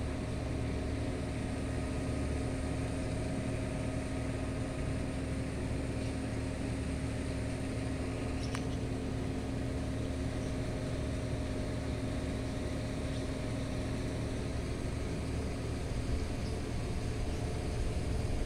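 Steady low mechanical hum, like a motor running nearby, with two steady tones in it that fade out in the last few seconds.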